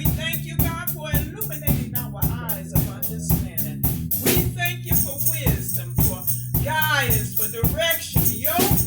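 Church praise music: a steady bass line under a shaken-percussion beat of about three strokes a second, with a voice over it.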